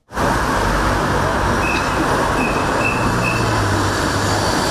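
City street traffic: cars driving past, a steady wash of engine and tyre noise with a low engine hum growing in the second half. A few short high squeaks sound around the middle.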